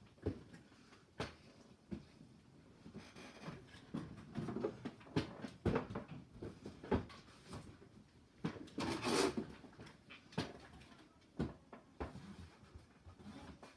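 Boxes being handled and knocked over: a run of scattered knocks and taps, with a longer rustling scrape about nine seconds in.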